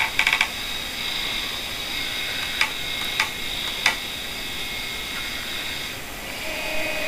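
Motors and actuators of a benchtop automated conveyor work cell running. A steady high whine, with a quick run of clicks at the start and three sharp clicks about two-thirds of a second apart in the middle, then a lower motor hum starting near the end.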